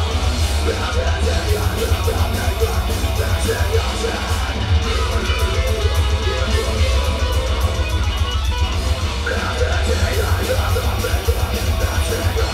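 A live heavy metal band playing loud: distorted electric guitar riffing over bass and drums, heard from within the crowd.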